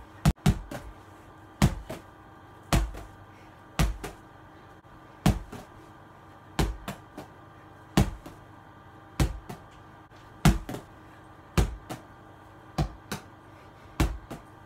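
A small ball thrown against a wall and caught, again and again: a sharp knock about every second and a quarter, each with a softer tap just after it.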